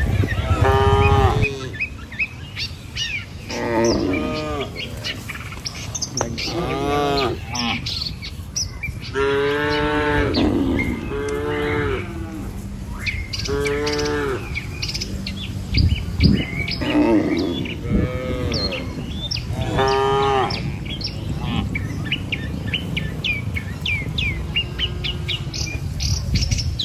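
A herd of cattle mooing, about ten drawn-out calls a couple of seconds apart, with small birds chirping between them.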